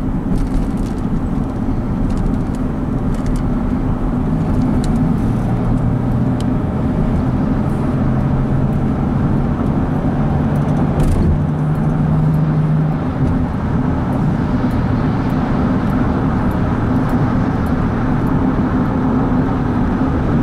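Steady engine and tyre road noise inside a minivan's cabin, accelerating up an on-ramp and onto a highway. A low engine hum comes in about five seconds in, steps up in pitch, and drops away around thirteen seconds; there is a brief knock near eleven seconds.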